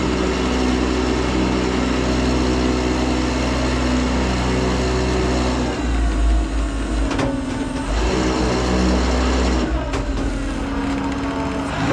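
Tow truck engine running steadily while the disabled truck is winched aboard, with a heavier low rumble for a couple of seconds around the middle and a few clunks near the end.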